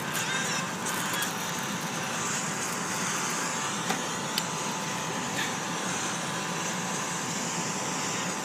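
Burger patties and hot dogs sizzling on a grate over hot charcoal: a steady hiss with a couple of sharp pops of fat about halfway through.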